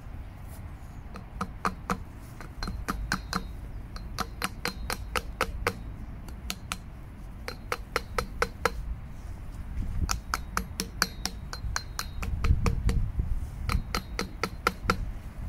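Hammer tapping the old fork seal, laid on top of the new one, to drive the new seal down into a Honda Deauville fork leg without a seal driver. Runs of sharp metallic taps come about four a second, with short pauses between runs.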